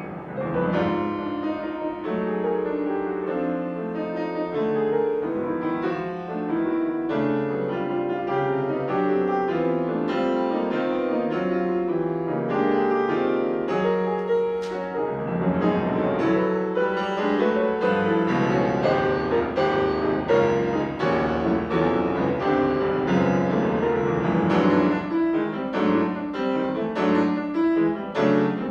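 Solo piano played on a Steinway concert grand: a continuous stream of notes, mostly in the middle register, turning into quickly repeated struck chords near the end.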